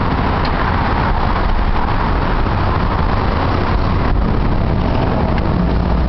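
Steady, loud road-traffic noise of vehicles passing close by, continuous with no breaks.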